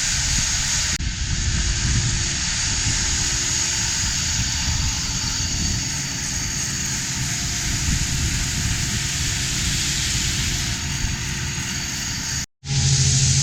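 A vehicle running steadily: engine rumble mixed with a loud rushing hiss. After a brief dropout near the end it gives way to a steady low engine hum.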